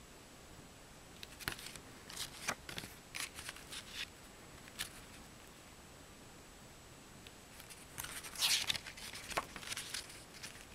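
Pages of a paper CD booklet being turned by hand: short, crisp paper rustles and flicks in two bursts, the first starting about a second in and the second about eight seconds in.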